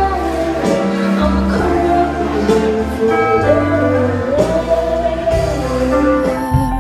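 A woman singing with a live band with electric guitar. A little past halfway her voice slides up into a long held note.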